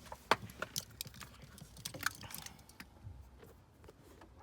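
Light, irregular clicks and rattles of small plastic and metal parts being handled, likely the wiring harness connectors and key. The clicks are busiest for about the first three seconds, then thin out.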